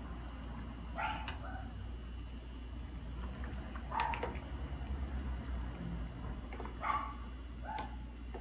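A red plastic spoon stirring ramen noodles and broth in a stainless steel pot, scraping and squeaking briefly against the pot four times over a low steady hum.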